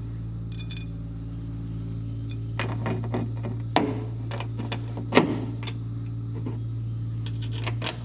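Small metal parts clicking and clinking as a part is handled and test-fitted with screws. There is a scattering of sharp taps, the loudest a little under four seconds in and about five seconds in, over a steady low hum.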